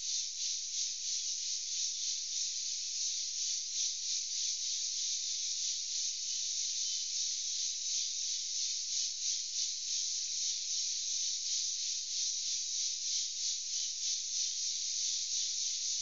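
Chorus of insects in sunny woodland: a continuous high buzz that pulses evenly about three times a second.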